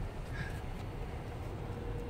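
Low steady rumble inside a Jeep Wrangler JK's cabin, with a faint brief tone about half a second in and a faint steady hum starting about one and a half seconds in.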